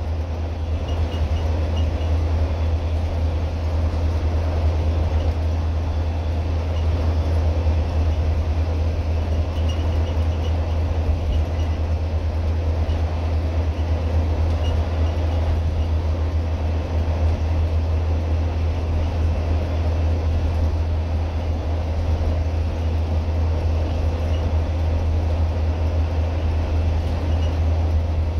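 Scania N230UD double-decker bus running at steady speed, heard from inside on the upper deck: an unbroken low engine drone under a steady rush of road and wind noise.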